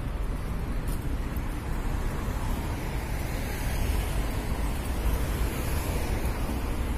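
Steady city street noise dominated by road traffic, with a deep, even rumble.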